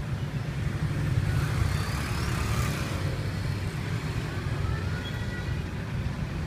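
Steady low rumble of street traffic, with a vehicle passing about two seconds in.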